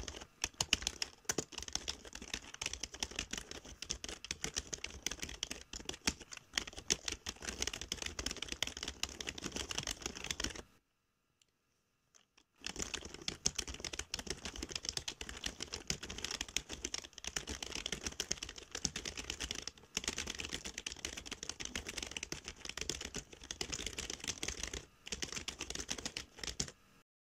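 Rapid typing on keys, a quick run of keystroke clicks that stops for about two seconds near the middle, then carries on, matching text being typed onto the screen.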